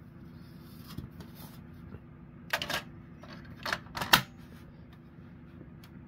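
Plastic cover of an Ademco 1689 smoke alarm being fitted and twisted onto its base: a few sharp plastic clicks and snaps, two close together about two and a half seconds in and two more near four seconds, the last the loudest.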